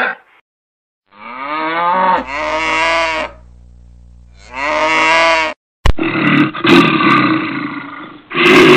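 Carabao (domestic water buffalo) mooing twice, each a long low call that rises in pitch and then holds. From about six seconds in comes a bear's rough, noisy growling in two long bouts.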